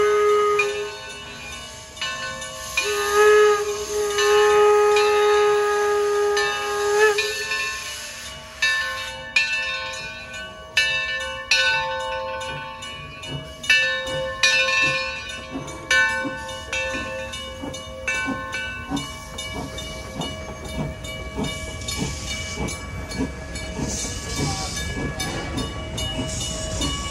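Steam locomotive whistle: a short blast, then a longer one of about four seconds. The engine then works away with sharp exhaust chuffs over hissing steam, the chuffs coming faster near the end as it picks up speed.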